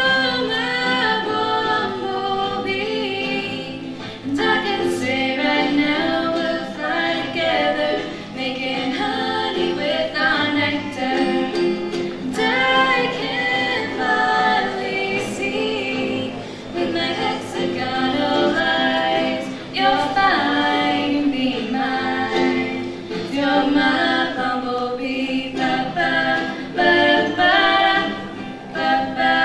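Two girls' voices singing a song together, accompanied by a strummed acoustic guitar and a ukulele.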